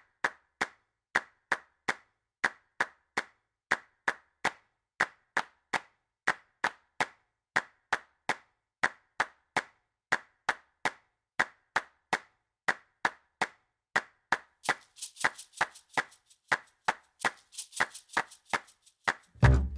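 Hands clapping a steady rhythm in repeating groups of three. About three-quarters of the way through, a second, brighter layer of claps joins in, and just before the end bass and drums come in.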